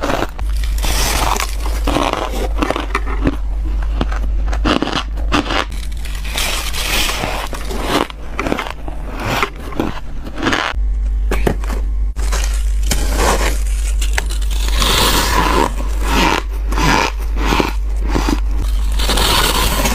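Ice being bitten and chewed close to the microphone: a rapid, continuous run of crisp crunches with squeaky, scraping bites.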